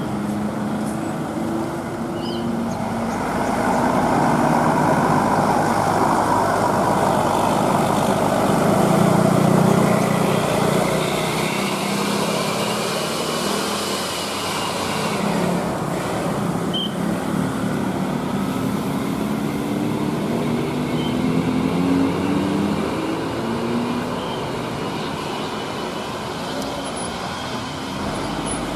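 Heavy road vehicles running on a winding road: engine drone and tyre noise with the engine note rising and falling, loudest about ten seconds in as one passes close.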